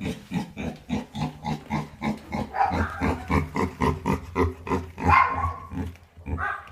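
Pig grunting in a quick series of short grunts, about four or five a second, with louder grunts in the middle and about five seconds in.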